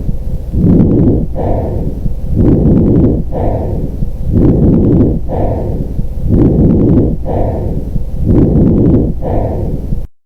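Lung breath sounds as heard through a stethoscope: a rushing breath noise in repeated phases about a second long, separated by short pauses, with faint clicks in some of them. The sound cuts off suddenly near the end.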